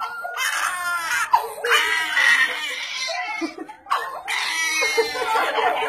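A young child screaming and crying in three long, high-pitched cries with short breaks between them.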